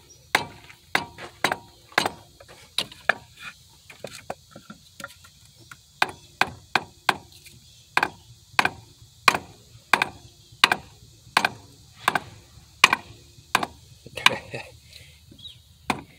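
Rubber mallet striking a wooden block held against a truck's alternator, a steady run of sharp knocks about two a second with a few short pauses. The blows are working a stuck alternator loose in its bracket, which the owner thinks probably swelled from heat.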